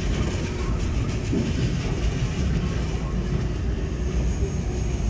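Suspended monorail car running along its elevated guideway, heard from inside the cabin: a steady low rumble.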